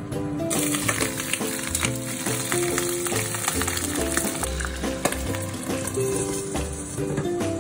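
Eggs frying in a hot honeycomb stainless-steel frying pan: a steady sizzle that starts abruptly about half a second in. Background music with a melody and bass plays throughout.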